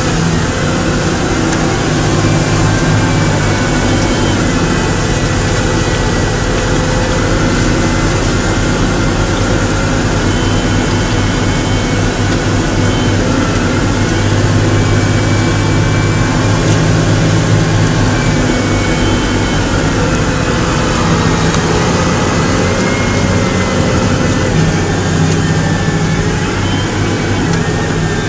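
Diesel engines of a tractor and a Claas Jaguar forage harvester running steadily under load while chopping maize, heard from inside the tractor's cab: a deep, even drone with a faint high whine above it.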